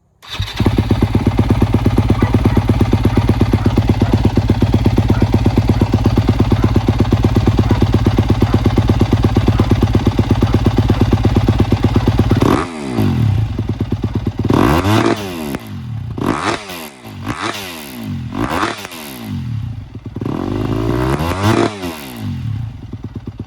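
Yamaha YZ250F single-cylinder four-stroke dirt bike engine running steadily at a fast idle, then revved hard in a series of about six quick throttle blips, each rising and falling in pitch, before dropping back to idle.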